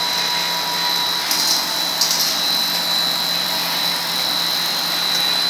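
Food-processing line machinery running steadily, with a constant high-pitched whine over a low hum. Two brief rattles come about one and a half and two seconds in.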